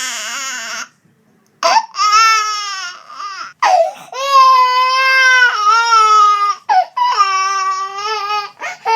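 Baby crying hard: a string of about four long, high-pitched wails with quick gasping breaths between them, after a brief pause about a second in.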